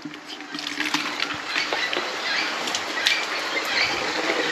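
Water splashing and pattering as a poultry waterer is tipped out and emptied onto the ground.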